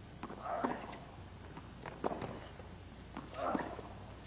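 Tennis rally: sharp racket strikes on the ball about every one and a half seconds, with lighter knocks between them.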